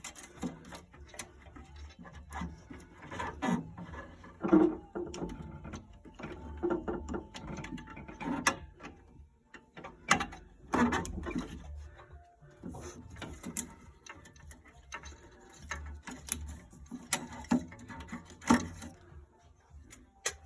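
Irregular clicks, knocks and ratcheting of hand tools and metal parts being worked on a boiler, over a faint low steady hum.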